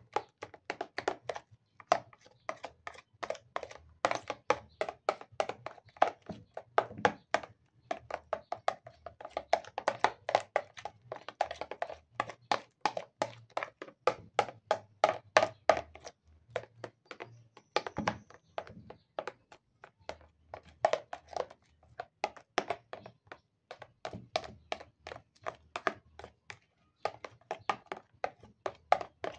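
A metal spoon beating thick cream in a plastic bowl by hand: rapid knocks and taps against the bowl, several a second, with brief pauses around the middle.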